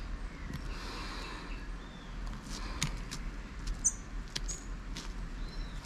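Scattered small clicks and taps of a smartphone being handled and pressed as a replacement back cover is seated, with a few brief, faint high chirps or squeaks.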